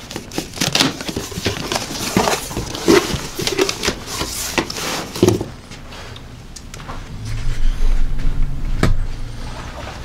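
Cardboard shipping box opened by hand: its flaps rustle, scrape and crackle for about the first five seconds. A low rumble follows later, with one knock near the end.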